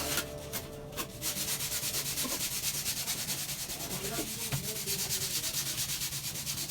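Hand sanding: sandpaper rubbed back and forth in rapid, even strokes, about five a second, starting about a second in.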